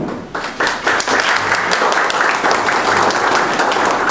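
Audience applauding in a hall. Claps start about half a second in and build within a second to a steady round of applause.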